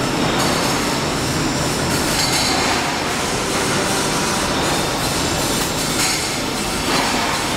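CNC pipe-cutting machine running, with steady loud metallic machine noise and faint high ringing tones throughout.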